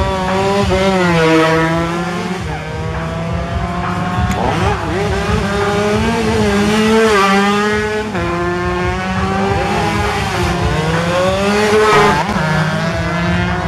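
Several 125 cc two-stroke underbone racing motorcycles at high revs, their engine notes climbing and falling again and again as they accelerate, shift and brake through the corners. The notes overlap as one bike follows another.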